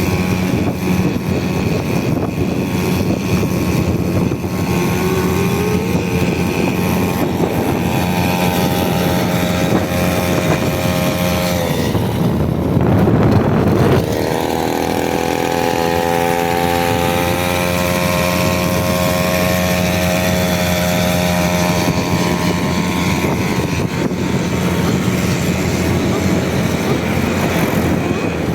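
Small brush-cutter engine on a motorized bicycle, running steadily under way. About twelve seconds in, its pitch drops and a louder rough noise takes over for a couple of seconds, then the engine speed climbs back up.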